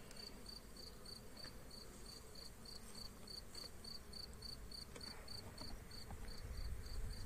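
A cricket chirping steadily and faintly, about three short high chirps a second.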